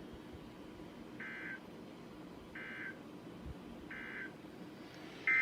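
Weather alert radio receiving an alert: three short, faint beeping bursts about a second and a half apart, the alert's SAME header data tones. A loud steady alarm tone then starts abruptly near the end.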